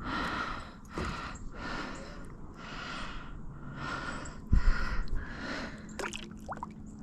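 A person breathing heavily close to the microphone, in rhythmic breaths about one a second, with a single low thump about four and a half seconds in.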